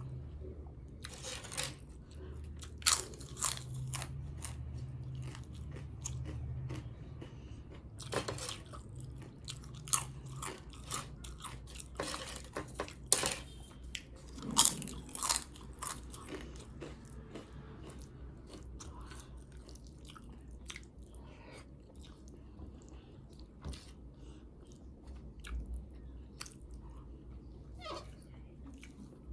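Close-miked eating: sharp crunches of papad (crisp lentil wafers) being bitten and chewed, mixed with softer chewing of kadhi and rice. The crunches come thick and fast through the first half and thin out towards the end.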